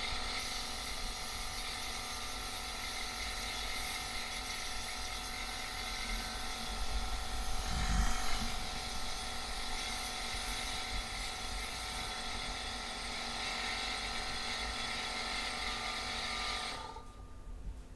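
Compressed air blowing from an air hose nozzle into the runners of an intake manifold, clearing out old insulation debris: a steady hiss that swells about halfway through and stops shortly before the end.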